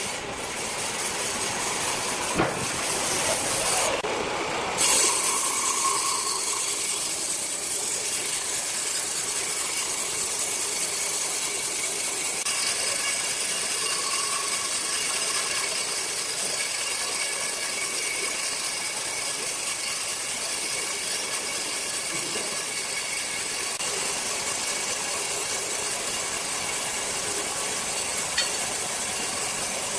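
Large sawmill circular saw running steadily with a dense, high whine, and a sharp click about two and a half seconds in.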